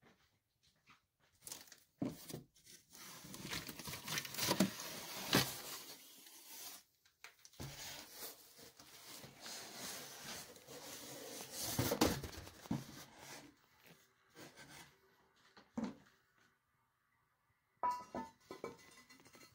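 Cardboard packing being torn, scraped and pulled out of a toilet's shipping box, in long rustling stretches with sharp rips. Near the end come a few short knocks.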